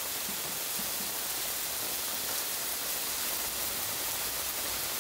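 Steady hiss of onion burgers frying on a hot steel plancha, mixed with heavy rain falling.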